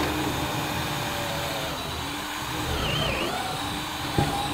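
Power drill running under load while boring a pilot hole for a lag screw into the wall, its motor pitch wavering slightly as it cuts.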